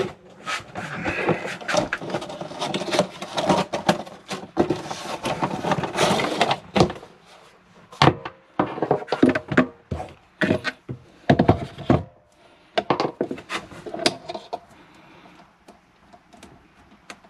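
Handling noise as a portable single-burner induction cooktop and its power cord are unpacked and set down on a hard counter. Dense rustling for the first several seconds gives way to a run of separate knocks and thuds, and it goes quieter about fourteen seconds in.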